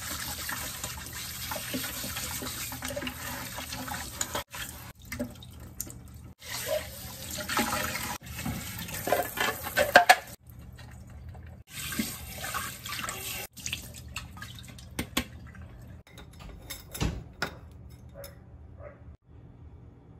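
Kitchen tap running into a stainless steel sink while Breville juicer parts, the bladed mesh filter basket and the feed chute, are rinsed under it. Hard parts knock and clatter now and then, loudest about halfway through. The water stops in the last few seconds, leaving a few light knocks.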